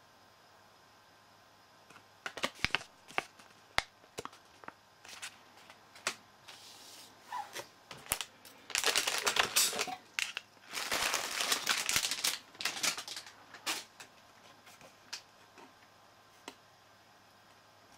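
Plastic wrapping crinkling in two rustling bursts as a motherboard is lifted out of its packaging, among scattered clicks and taps of hardware being handled.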